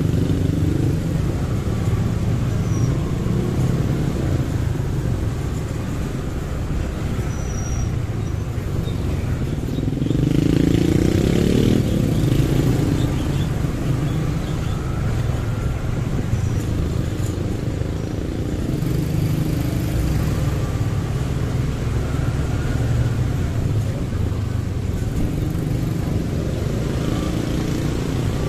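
Motorcycle riding through city street traffic: a steady engine rumble with the noise of other vehicles around. About ten seconds in, an engine grows louder and rises in pitch as it accelerates, then settles back.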